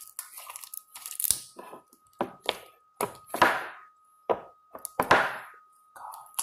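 Sticky homemade glue slime being pulled and squeezed by hand, giving a series of sharp crackling, tearing pops, about six of them, the loudest about three and a half and five seconds in. A faint steady high tone runs underneath.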